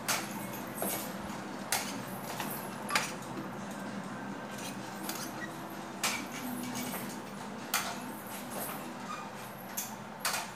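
Forearm crutches tapping on a hard stone floor as a person walks on them: irregular sharp clicks every second or two over a steady background hiss.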